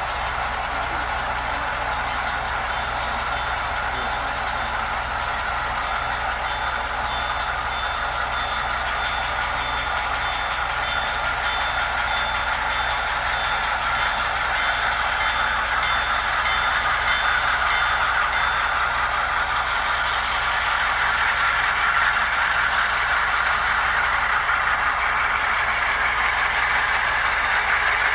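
Model diesel locomotives' sound decoders playing diesel engine running sounds through small onboard speakers, with the models' wheels rolling on the track; the sound grows louder partway through as the locomotives pass close by.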